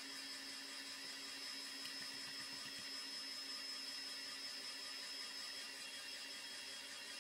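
Steady electric whir of a small motor-driven appliance, an even hum with a few fixed tones that does not change.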